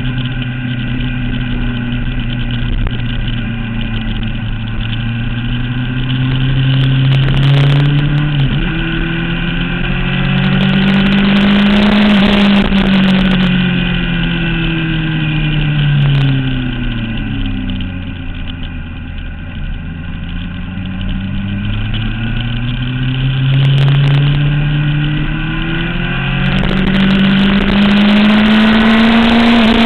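Onboard sound of a motorcycle engine lapping a race track. Its pitch climbs slowly under acceleration, drops as it slows for a corner about halfway through, then climbs again, with a steady rush of wind noise underneath.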